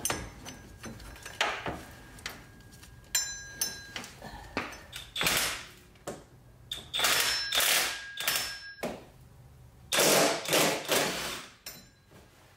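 Ratchet with a 14 mm socket working the power steering pump mounting bolts loose: a series of short bursts of ratchet clicking and metal tool knocks, the longest and loudest lasting about a second near the end.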